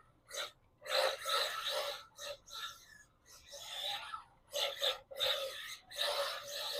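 Electric 1/12-scale Losi NASCAR RC car on slick tires, sliding and scrubbing across a smooth floor as it drifts. The noise comes in irregular hissing bursts, each from a quarter second to about a second long.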